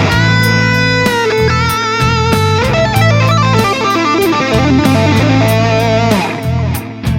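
Electric guitar played through an M-Vave MK300 multi-effects unit. It plays a held lead note with vibrato, then quick melodic runs, over low bass notes, and the sound dips briefly just before the end.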